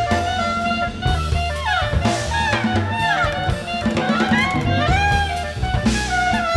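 Small jazz ensemble playing: drum kit with cymbals, a bass line, and saxophone and brass lines that bend up and down in pitch in the middle of the passage.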